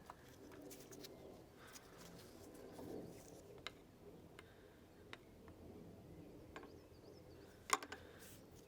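Faint, scattered sharp clicks and taps of hand tools and small metal parts being handled on the engine, with a louder double click near the end, over a low room hum.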